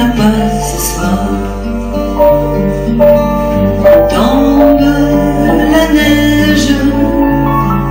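A woman singing a slow ballad live, accompanied by a nylon-string classical guitar and piano, with sustained bass notes changing about once a second.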